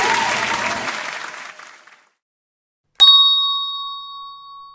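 Applause fading out, then about three seconds in a single hand bell struck once, ringing with a clear tone that dies away.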